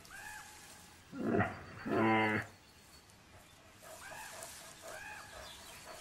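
Brown bear calling twice, a second or so apart. The second call is a longer, louder low grunting moan.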